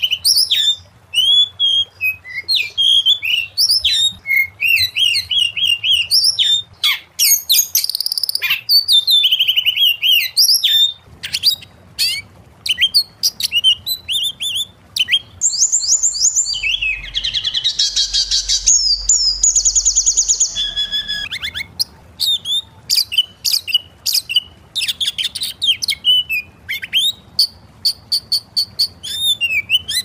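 Oriental magpie-robin singing: a fast, varied run of whistled phrases and chirps, broken about halfway through by several seconds of harsh, buzzy chatter.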